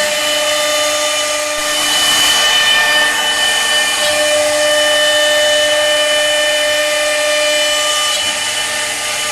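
CNC router spindle running with a steady high whine while its bit cuts wood, the cutting noise growing louder for a couple of seconds about two seconds in.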